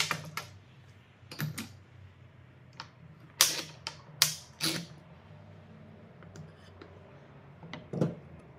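Metal F-clamps being released and wooden jig pieces handled on a worktable: a sharp click at the start, a couple of knocks, then four loud clacks in quick succession midway, and a duller wooden knock near the end as a piece is set down.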